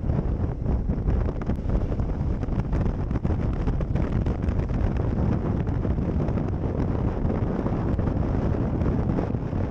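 Wind rushing and buffeting over the microphone of a camera on a motorcycle at riding speed, with the bike's engine and road noise running underneath.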